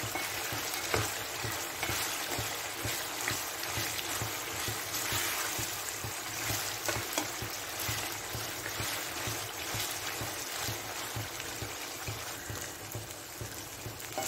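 Mutton pieces sizzling as they fry in oil in a pan, with a spatula stirring and scraping through them now and then.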